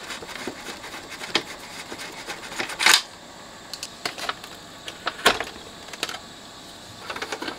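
Scattered small clicks and knocks of a screwdriver and the plastic case and parts of a Telefunken CR100 boom box being handled during disassembly, with a louder clatter about three seconds in.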